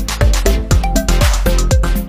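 Upbeat electronic background music with a steady beat and short plucked melody notes.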